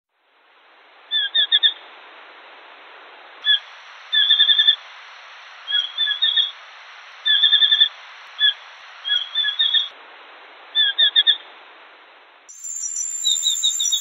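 Small sparrowhawk (Accipiter nanus) calling: short, rapid runs of three to six sharp notes, about a dozen runs, over field-recording hiss. Near the end a different recording cuts in with higher notes and a high steady tone.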